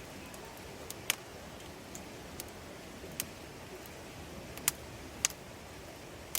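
Wood campfire crackling: sparse, irregular sharp pops over a steady low hiss.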